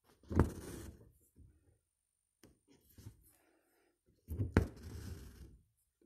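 Embroidery needle and thread pulled through fabric by hand, twice: each time a sharp tap as the needle goes through, then a rustle of about a second as the thread draws after it, with fainter scratches of thread on cloth in between.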